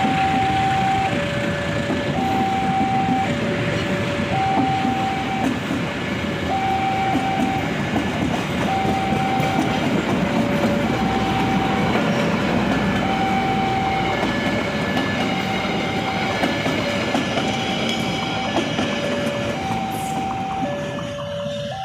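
A train running through the station, a steady rumble with wheel noise on the rails. Over it, an electronic two-tone warning signal alternates high and low, each tone held about a second.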